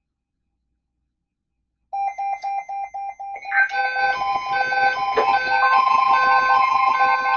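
Electronic alarm-style beeping starts about two seconds in: a rapid pulsing beep, then several more beeping tones at different pitches stack on top in a steady repeating pattern, with a held tone joining partway through.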